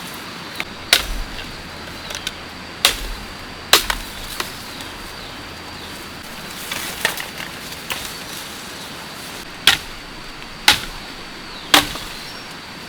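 Blade chopping bamboo: about seven sharp strikes at uneven intervals, the last three roughly a second apart.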